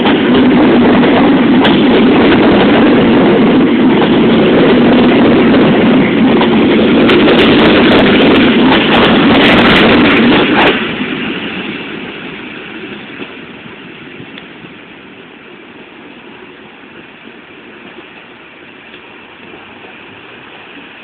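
SKM electric multiple unit running into the station at close range: a loud, steady rumble of wheels on rails and running gear, with a run of sharp clicks from about seven to ten seconds in. About eleven seconds in the noise drops off sharply and fades to a much quieter steady rumble.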